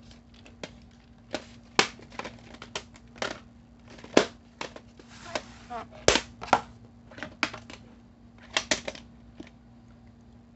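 A plastic VHS cassette and its case being handled and set down on a tile floor: an irregular run of sharp clicks, taps and knocks, over a faint steady low hum.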